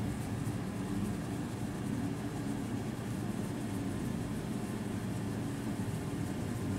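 Domestic cat purring steadily while its chin is scratched, a low continuous rumble of contentment.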